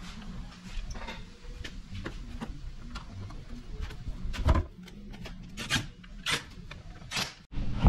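Scraping and rubbing of the plastic under-shield being handled under the car, with small knocks and one loud knock about halfway. Near the end come three short bursts from a cordless drill-driver working the panel's screws.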